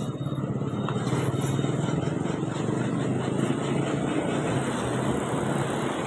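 Diesel engine of a rear-engined intercity bus idling steadily, warming up before departure.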